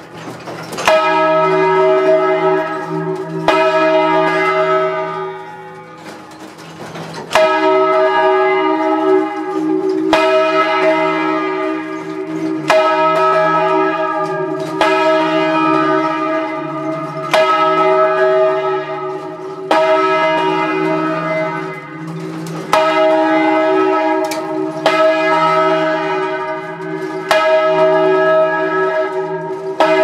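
Large bronze church bell swung by hand, its clapper striking about every two and a half seconds, each stroke ringing on with a long, overtone-rich hum under the next. Heard at close range inside the belfry.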